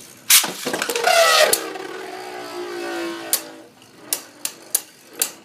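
Beyblade Burst top launched into a plastic stadium: a sharp snap of the launch, then the top whirring as it spins, its pitch gliding down and fading. Near the end, about five sharp plastic clacks as the two spinning tops collide.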